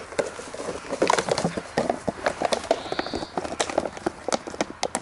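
A puppy chewing and tossing a 1.5-litre plastic bottle, making a fast, irregular string of crackles and clicks from the plastic.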